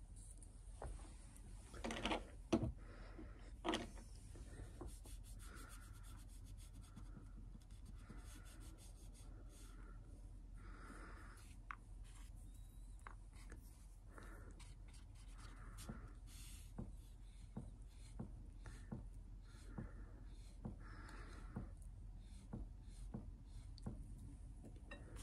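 Faint scrubbing of a cotton swab over old solvent-softened varnish on a wooden lid, in short repeated rubbing strokes. A few louder knocks come about two to four seconds in.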